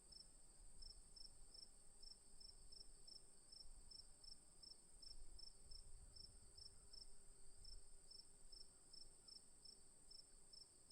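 Faint crickets chirping: a steady, very high-pitched continuous trill with a slightly lower series of regular short chirps, about two to three a second, over it.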